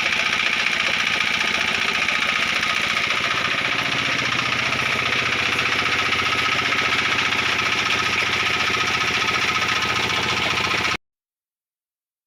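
An engine running steadily with a fast, even knock, cutting off abruptly about eleven seconds in.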